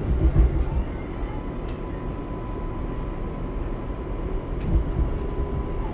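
R188 subway train with Bombardier MITRAC propulsion starting to pull out of the station: a low rumble from the cars with a steady thin electric whine from the propulsion, and two heavier low surges, just after the start and near the end.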